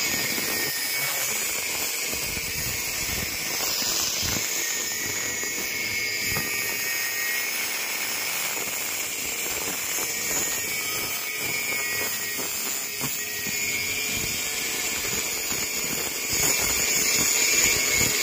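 Handheld angle grinder with an abrasive disc grinding a steel pipe: a steady high whine and hiss of the disc on the metal, getting louder for the last couple of seconds.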